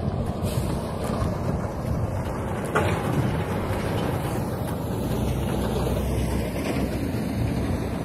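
Wind rumbling steadily on the phone's microphone while the man jogs.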